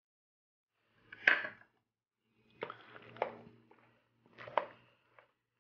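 Slotted wooden spoon stirring dressed rotini pasta salad in a large bowl: a few separate knocks and scrapes of the spoon against the bowl, the loudest about a second in.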